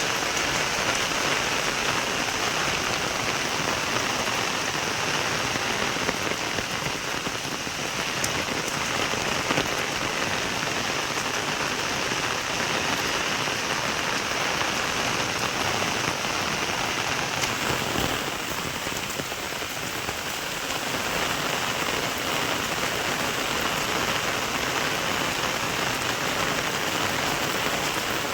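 Steady rain falling, an even hiss that dips slightly for a few seconds about two-thirds of the way through.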